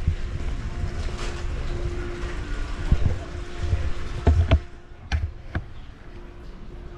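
Low rumbling handling noise from a camera being carried along, with several sharp knocks between about three and five and a half seconds in, after which the rumble drops away. A faint steady hum runs underneath.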